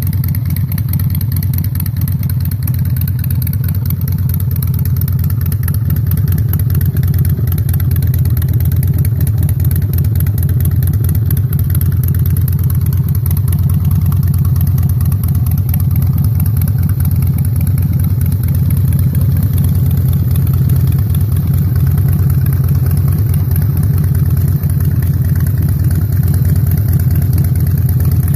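Harley-Davidson air-cooled V-twin motorcycle engine idling steadily through a black AccessoriesHD LSD Razor exhaust with its baffles fitted.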